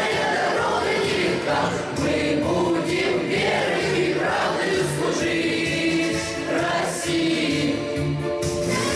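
A choir sings a Russian military march song over instrumental backing.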